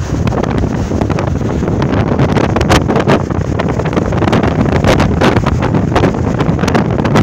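Strong nord-ost (bora) wind buffeting the microphone: loud, steady rumbling wind noise broken by many short gusts.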